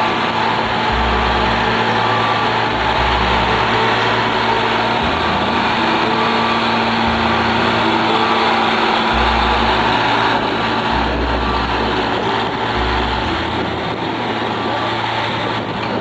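Diesel engines of a Sea Cat anti-pollution work boat running steadily under way, a continuous engine drone with a heavy wash of noise.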